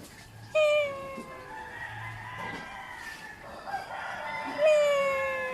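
Cat giving two long, drawn-out meows, each sliding slowly down in pitch; the second begins near the end.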